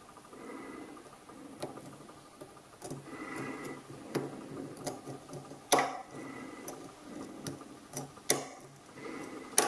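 Steel lock pick ticking and scraping against the pin stack inside a padlock during single-pin picking with a hook and bottom-of-keyway tension: faint, irregular small clicks, with sharper clicks about six seconds in, about eight seconds in and near the end.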